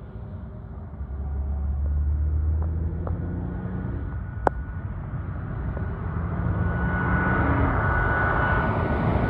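Boeing 737 MAX 8 climbing out on takeoff, its CFM LEAP-1B turbofans growing steadily louder from about six seconds in, with a steady high fan whine over the jet noise. A low rumble fills the first few seconds, and a single sharp click comes about halfway through.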